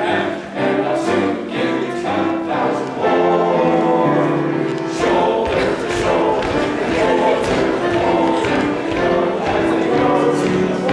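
A group of six teenage boys singing together, holding long notes.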